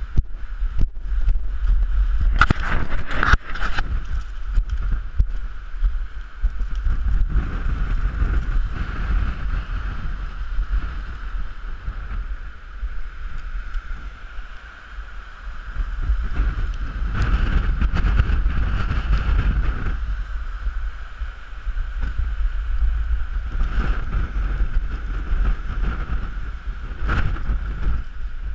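Massey Ferguson tractor engine running steadily as it tows a waterlogged quad bike through mud, with wind buffeting the microphone. Louder rattling bursts come and go, the strongest about two to four seconds in.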